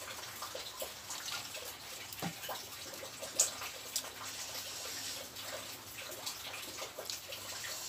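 Close-miked wet eating sounds: swallows of water from a plastic bottle, then fingers squishing and mixing rice with sambal, with small mouth and lip clicks. A couple of sharper clicks come about halfway through.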